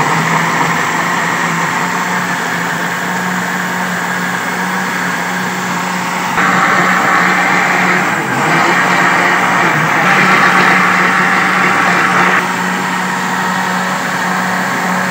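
Electric countertop jug blender running steadily, its motor humming and blades churning a full jar of milk, apple and banana into a milkshake. The sound gets louder about six seconds in and eases back a little near the end.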